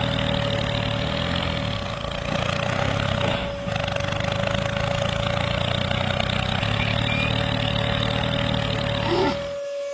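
Tractor engine running steadily with a constant high whine over it; the engine sound cuts off suddenly near the end.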